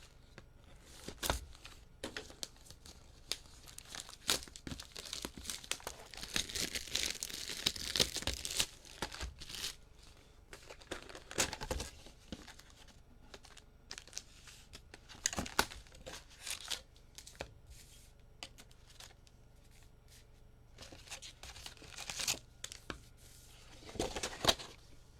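Plastic wrapping on a sealed hobby box of trading cards being torn and crinkled as the box is opened, with scattered rustles and taps of cardboard and packs. The tearing and crinkling is densest a few seconds in, with further bursts through the rest.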